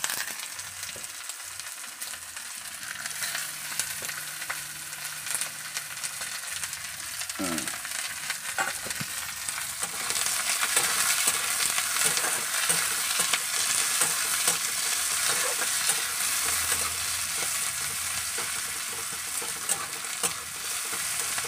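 Sliced onions sizzling as they fry in hot oil in a kadai, with a metal spatula scraping and clicking against the pan as they are stirred. The sizzle gets louder about halfway through.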